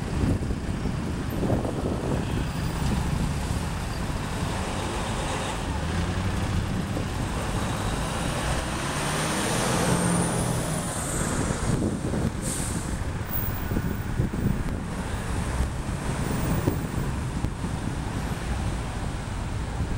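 Street traffic noise: cars, trucks and buses idling and passing, with a brief high-pitched squeal about ten seconds in.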